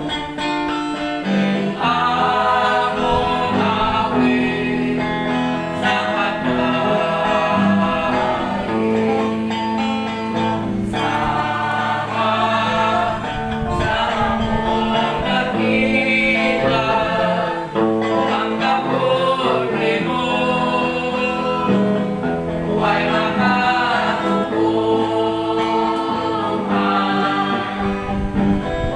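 Gospel-style devotional song: voices singing over guitar accompaniment with sustained bass notes.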